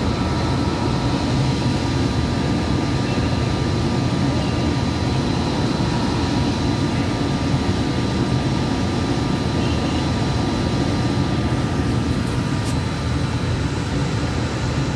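Steady rumble of a Hudson-Bergen Light Rail car running at speed, heard from inside the car, with a thin steady whine over it and a couple of faint clicks near the end.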